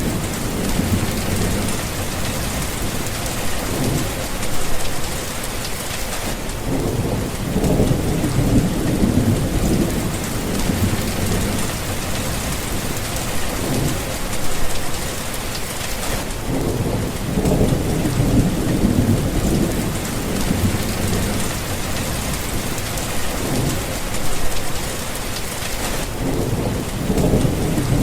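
Heavy rain falling steadily, with several low rolls of thunder rumbling through it.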